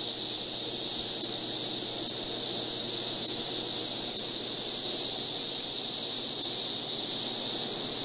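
Chorus of Brood X periodical cicadas: a loud, steady, high-pitched drone of many insects singing at once, made by their vibrating timbals.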